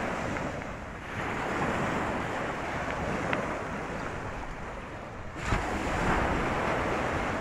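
Small waves breaking and washing up the beach, with wind on the microphone. The wash swells and ebbs, and a louder surge sets in about five and a half seconds in.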